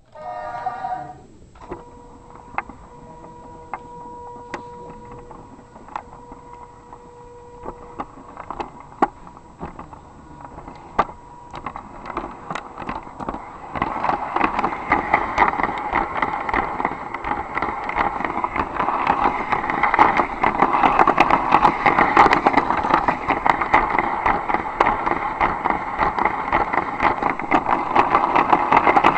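Lego train running along plastic track, carrying an onboard camera. Scattered clicks come first, then from about halfway a dense, continuous rattle that keeps growing louder. A brief pitched tone sounds at the very start.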